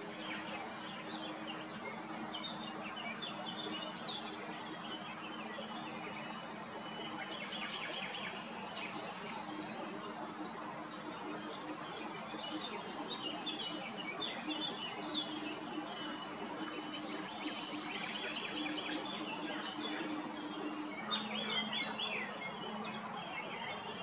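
Outdoor ambience of steady hiss with small birds chirping and singing in the background throughout, over a low steady hum and a faint high tone that comes and goes.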